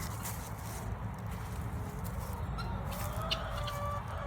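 Poultry calling faintly, a few short clucking calls from about halfway through, over a steady low rumble.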